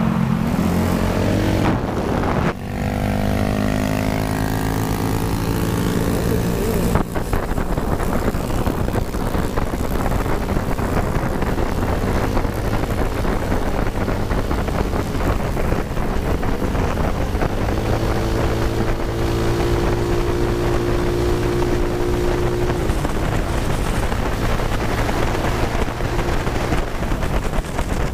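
GY6-swapped Honda Ruckus scooter engine running at road speed under wind noise on the camera microphone. The engine note shifts in pitch about three seconds in and settles into a steady drone for a few seconds past the middle.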